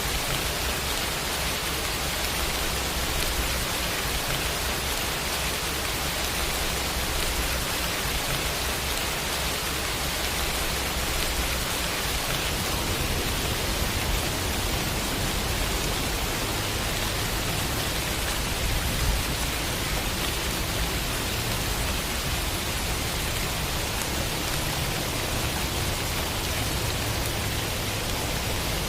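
Rain sound effect: a steady, even hiss of rainfall with a low rumble underneath that changes character about twelve seconds in.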